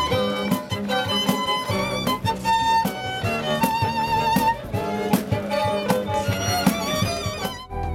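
Solo violin playing a melody with vibrato over a beat of sharp percussive hits. The music breaks off near the end.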